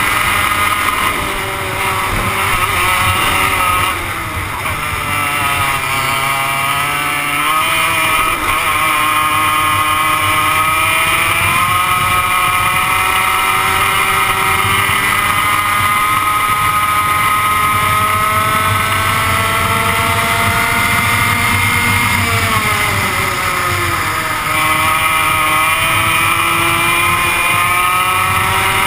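Two-stroke 100cc kart engine heard from on board at racing speed. Its pitch falls as the kart slows for a corner a few seconds in, then climbs steadily for a long stretch as it speeds up along the straight. It falls again and picks back up near the end, as the kart takes another corner.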